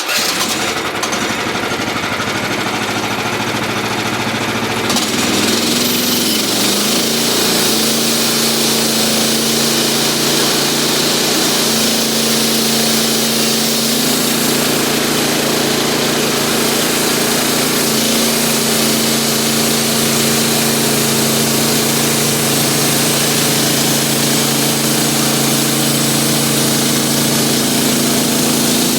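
Norwood portable band sawmill running: the engine starts loud and steady, rises slightly in pitch about five seconds in, then holds at a constant speed.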